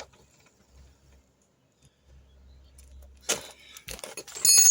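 Faint handling noise, then a knock about three seconds in and a clatter of metal ending in a bright, ringing clink, as of a metal tool or keys being set down.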